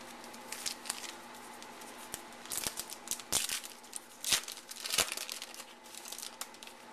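Foil wrapper of an Allen & Ginter baseball card pack crinkling and tearing open: an irregular run of crackles and sharp rips, the loudest a little past the middle.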